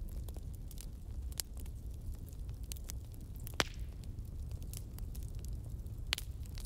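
Fire crackling: irregular sharp pops and snaps over a low, steady rumble, with a louder pop a little past halfway and another near the end.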